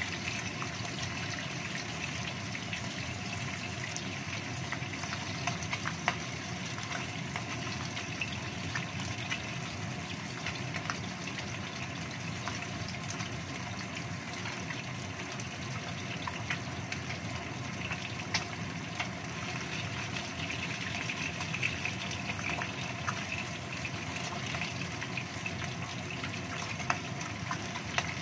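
Salmon pieces frying in oil in a wok: a steady sizzle with scattered pops and crackles.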